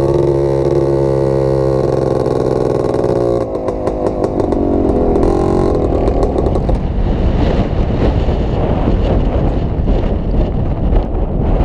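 Honda ATV engine running at a steady pitch under throttle, then about three and a half seconds in its steady note breaks off and the rest is a rougher, uneven engine sound mixed with wind rushing over the microphone.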